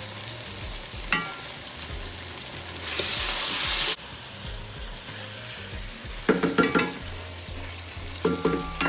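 Food frying and sizzling in a hot pan as it is stirred. About three seconds in, a loud hiss flares for a second, and near the end there are a couple of short clattering sounds.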